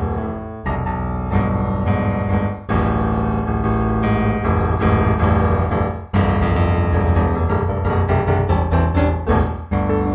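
Piano music, chords and melody notes played at an unhurried pace, with a couple of short pauses between phrases.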